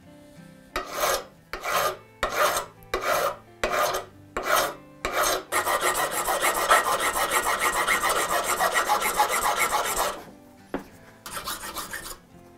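Hand file rasping across a workpiece clamped in a vise: about eight separate strokes, then a burst of rapid short strokes lasting about four seconds, then a few more strokes near the end.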